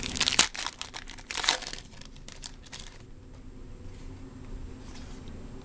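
Plastic wrapper of a trading-card pack crinkling as it is handled and opened. The crackling stops about three seconds in.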